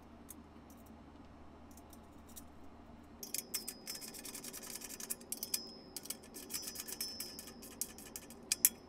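Quick metallic clicking and rattling of a hand wrench tightening nuts and bolts on a steel power-tower frame. Faint at first, it becomes a dense run of small clicks from about three seconds in.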